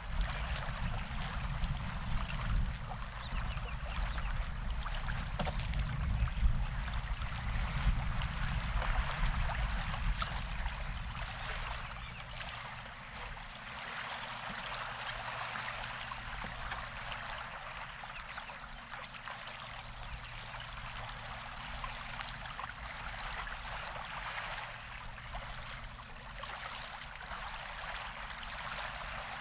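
Small lake waves lapping and trickling at the shoreline, with wind gusting on the microphone as a low rumble that is heavier in the first ten or twelve seconds and then eases.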